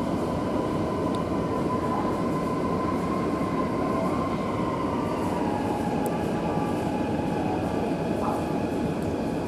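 Interior of a metro train car standing at a station platform: a steady hum and hiss from the car's equipment and ventilation, with a faint whine that slowly drops in pitch through the middle.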